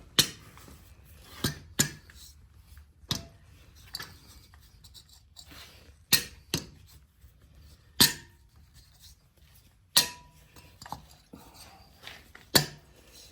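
Irregular sharp taps and clinks of tools against the air-cooled VW engine case, about ten over the stretch, a few leaving a short metallic ring, as a stuck stud insert is worked loose.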